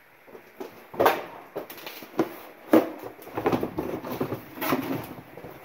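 Rummaging by hand through a box of paperwork: paper rustling, with a few sharp knocks and thuds, the loudest near the middle.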